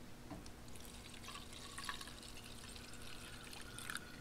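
Coleman camp fuel poured from its can through a filter funnel into a camp stove's fuel tank: a faint liquid trickle with light drips.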